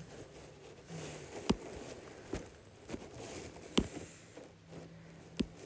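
Sharp taps on a tablet touchscreen, four of them spread over a few seconds, with faint scratchy rubbing between them.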